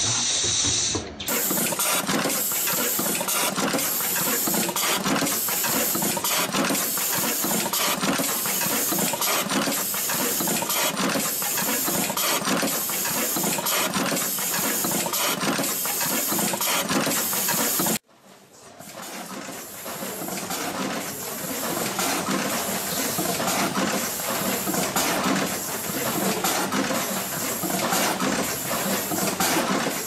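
Automatic terminal crimping machine running: a steady hiss with the mechanism clattering in an even, repeating cycle. The sound cuts out suddenly about three-fifths of the way through and fades back in.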